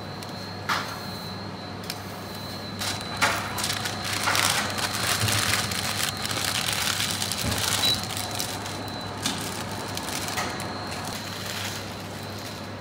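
Paper wrapper crinkling and rustling as a filled doner flatbread is folded into it by hand, loudest in the middle, after a couple of sharp clicks. Under it runs a steady background hum.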